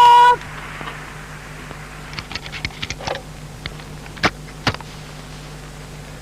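A steady pitched tone cuts off about a third of a second in. It leaves the low hum and hiss of an old film soundtrack, with a few scattered faint clicks and pops.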